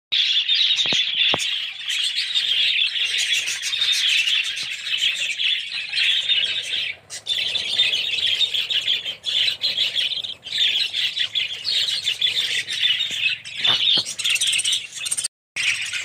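A flock of budgerigars chattering, many quick overlapping chirps at once.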